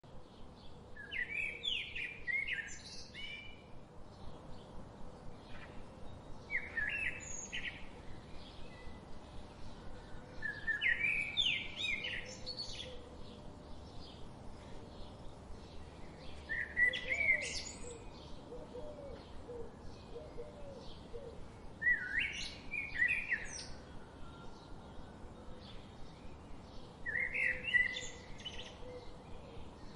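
A songbird singing short, quick phrases of chirps and trills about every five seconds, with fainter chirps from other birds in between.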